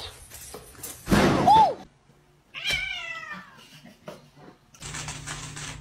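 Domestic cat meowing: a loud, harsh call about a second in, then a shorter meow falling in pitch about a second later.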